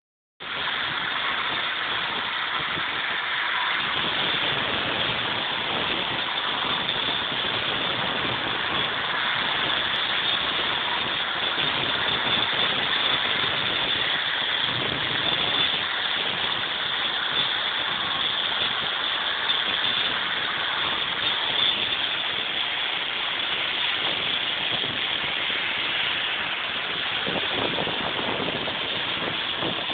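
Angle grinder running steadily under load, cutting out mortar joints in brickwork to prepare them for tuckpointing.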